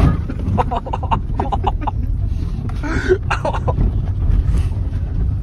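Car cabin noise on a rough dirt lane: a steady low engine and tyre rumble, with scattered knocks and rattles over the bumps. A brief cough-like voice sound comes about three seconds in.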